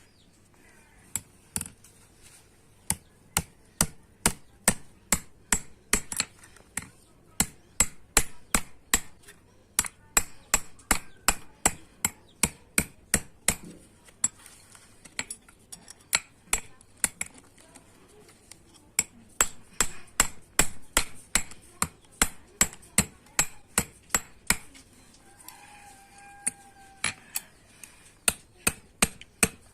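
Hand hammer striking metal in a steady run of sharp blows, about three a second, with a few short pauses: a blacksmith hammering out a metal bread-baking tray.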